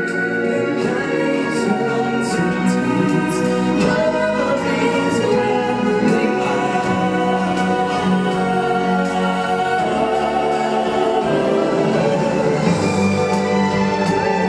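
Stage-show music: a chorus of voices singing over full orchestral backing, with light percussion hits, loud and steady throughout.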